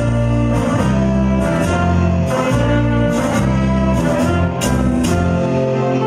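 Live band playing an instrumental Latin number on saxophones, electric guitar, keyboard and drum kit, with cymbal hits over a bass line that moves from note to note.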